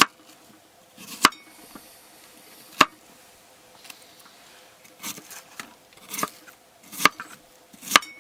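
Kitchen knife chopping an onion on a small cutting board: about eight separate, uneven strokes, spread out at first and coming closer together in the second half.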